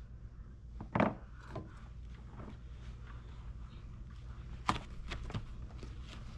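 A few short knocks and clicks over a steady low hum, the clearest about a second in and two more close together near five seconds in.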